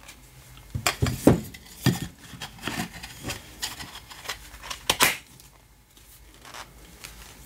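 Plastic cross-stitch snap-frame clips clicking and knocking, with fabric rustling, as the clip bars are pressed on and twisted to tighten the fabric. There are several sharp separate knocks in the first five seconds.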